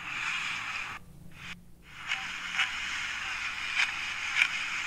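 Grass blades being cut and pushed aside with a tiny hand blade: a scraping, rustling hiss with three sharp snips in the second half.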